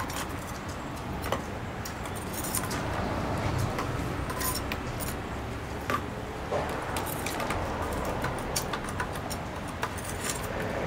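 Scattered light clicks and metallic clinks of kitchen work over a steady low hum.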